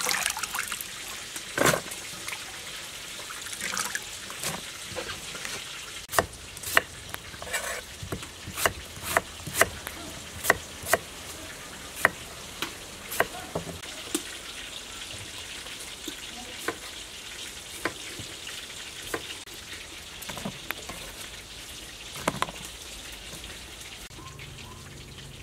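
Kitchen knife cutting peeled wax gourd on a wooden cutting board: a run of sharp knocks, closely spaced in the middle and sparser towards the end. Water from a tap runs onto fish in a bowl for the first second.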